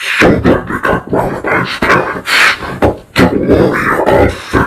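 A cartoon character's voice babbling rapidly in unintelligible, garbled sounds, choppy with clicks and breaks.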